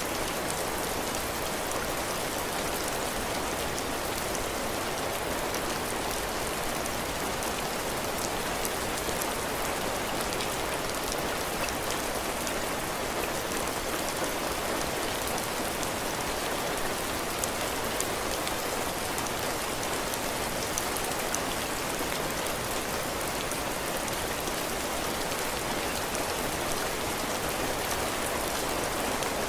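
Steady heavy rain falling on a cabin porch roof and floor, a dense even patter with scattered individual drop ticks.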